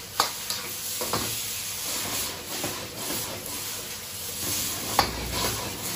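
Shredded zucchini with dried shrimp sizzling in a wok, hissing with steam as just-added cooking wine boils off while the wok is tossed over a high gas flame. A few sharp metal knocks of the ladle against the wok, near the start, about a second in, and about five seconds in.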